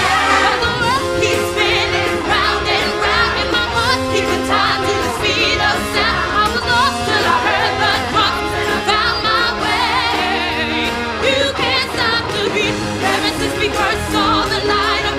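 A musical-theatre cast number: a lead voice and a full ensemble chorus singing over band accompaniment with a steady beat.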